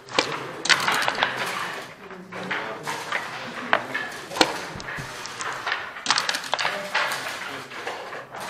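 Sharp, irregular clacks of backgammon checkers and dice striking a board during play, about a dozen over the stretch, over a faint murmur of voices.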